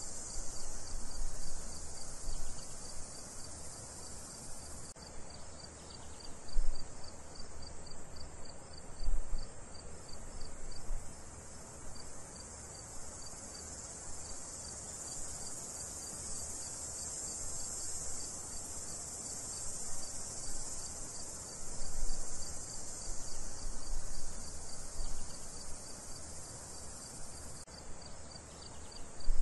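Crickets and other insects chirping in a steady chorus: a fast, even pulse of chirps over a high insect hiss. Occasional low rumbles come and go underneath.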